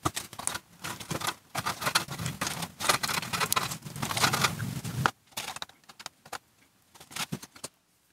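Hand crimping tool clicking and stiff high-temperature wires rustling as a pair of wires is crimped into a ferrule on a kiln element terminal. The clicking is dense for about five seconds, then thins to a few scattered clicks.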